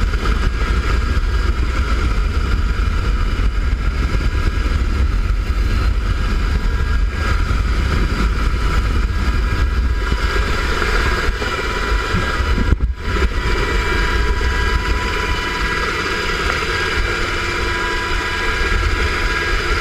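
Helicopter turbine engines and rotor running steadily in a hover, heard at the open cabin door: a deep, constant rumble with steady whines over it. The sound briefly drops out once about two-thirds of the way through.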